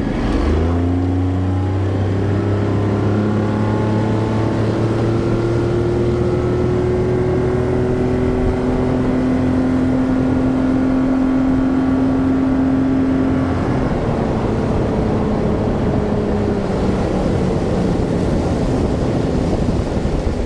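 Boat outboard motor revving up from idle, then running steadily at cruising speed as the boat travels, its pitch shifting slightly about two-thirds of the way through.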